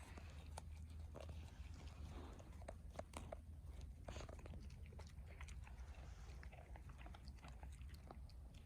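A dog tearing off grass and chewing it, with irregular crunching and small ripping clicks.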